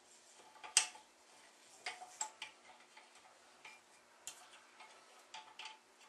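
A 3/8-drive socket ratchet with extension being fitted and worked on a carburetor bolt: scattered, irregular sharp metal clicks and clinks in short strokes.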